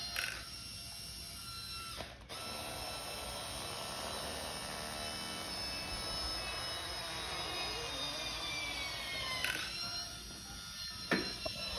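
Electric drive of a radio-controlled beach wagon running with a steady mechanical whine made of several high tones, the pitch sagging about nine and a half seconds in. Sharp clicks come about two seconds in and again near the end.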